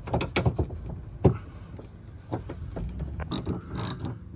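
Metal tool clicks and knocks, then a socket ratchet clicking in short runs near the end as a 10 mm bolt is undone.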